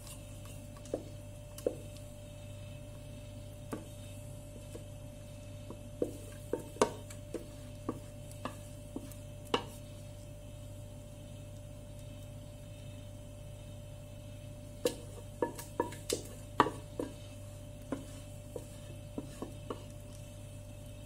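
Metal spoon scraping and knocking against a stainless steel pot as thick milk pudding is spooned out into a glass baking dish: irregular sharp clicks in two bursts with a quieter stretch between, over a steady low hum.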